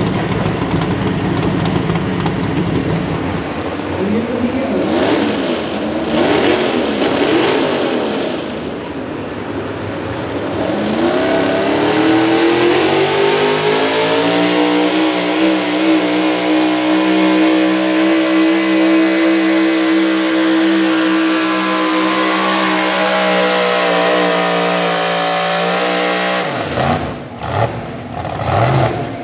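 Four-wheel-drive pulling truck's engine revving up and down a few times, then climbing to high revs and holding there at full throttle under the load of the pull. Near the end the throttle is cut and the engine drops off suddenly.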